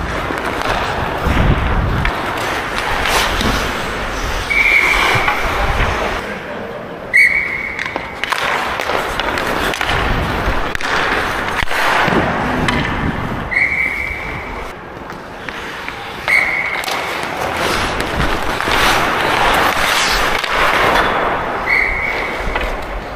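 Hockey skate blades carving and scraping the ice during play, with sticks and puck clacking, and players calling out. Short high whistle-like tones sound several times, a few seconds apart.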